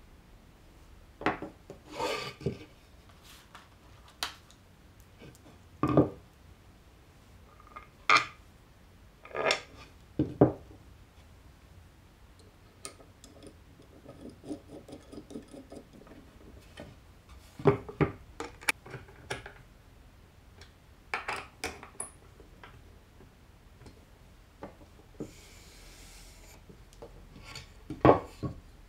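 A metal pull handle being screwed by hand onto a plywood panel with a screwdriver, giving a run of quick small clicks in the middle. Around this are separate knocks and clatters as the wood and metal parts are handled and set down on a wooden workbench.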